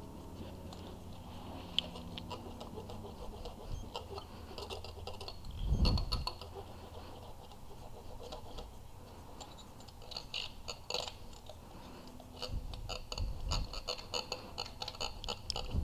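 Long feeler gauge blades sliding in and out between the rocker arms and valve stems of a Honda B18C1 engine to check valve lash, making light metallic scraping and quick ticking that gets busier in the last few seconds. A dull thump about six seconds in is the loudest sound.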